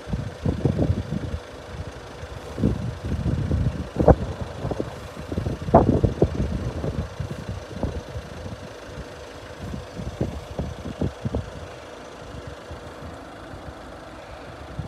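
Wind buffeting the microphone in irregular low gusts, with two stronger hits about four and six seconds in, easing off in the second half.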